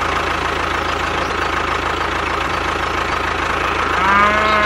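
Tractor engine idling steadily with a fine, regular knock. About four seconds in, a cow moos once, briefly.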